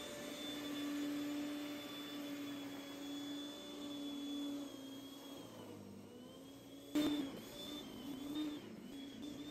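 Snow Joe SJ619E 14.5-amp electric snow thrower's motor running with a steady whine, its pitch sagging and then wavering as the auger takes in snow and throws it. A sudden sharp knock comes about seven seconds in.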